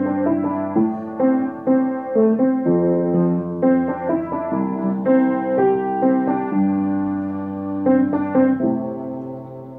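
Background piano music: a steady run of notes over held low bass notes, fading near the end.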